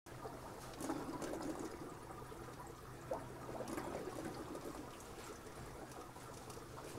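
Aquarium water trickling and splashing steadily, over a low steady hum.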